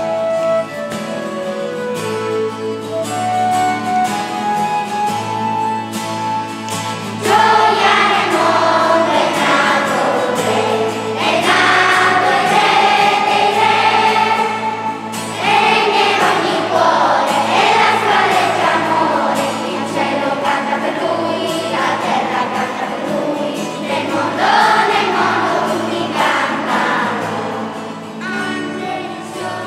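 An instrumental introduction plays a single melody line, then about seven seconds in a children's choir comes in, singing with accompaniment.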